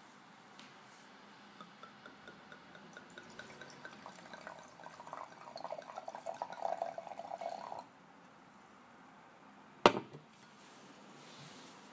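Red wine poured from a bottle into a wine glass, growing louder as it pours and then stopping abruptly. About two seconds later comes a single sharp clack as the bottle is set down on a glass tabletop.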